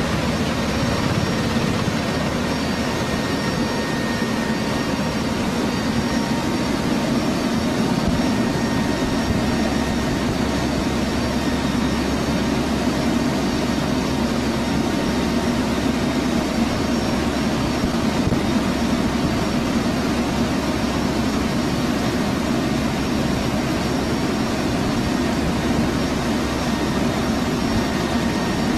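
Steady drone of the HC-130 tanker's four turboprop engines and rushing air, heard from aboard the aircraft.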